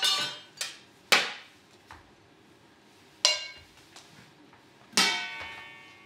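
Metal kitchenware clanging: about five sharp hits of pots, pans or lids, each ringing briefly, the loudest about a second in and the last, near the end, ringing longest.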